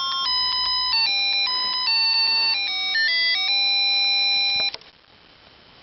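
Electronic tune from a baby rocker's built-in music unit: a melody of clean, beep-like notes that cuts off with a click near the end.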